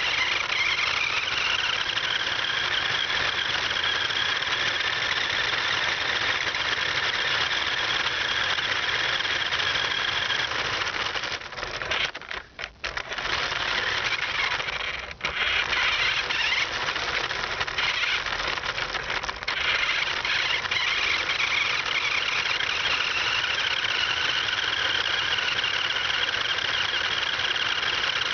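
Remote-control car's motor and gears whining steadily, heard from a camera strapped onto the car, the pitch drifting a little as it speeds up and slows. The sound cuts out briefly twice around the middle.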